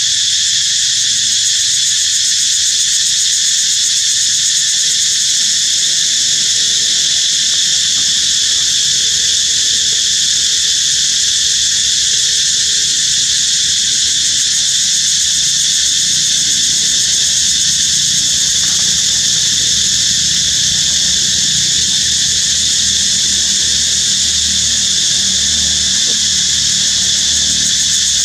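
A loud, steady, high-pitched insect chorus buzzing without a break.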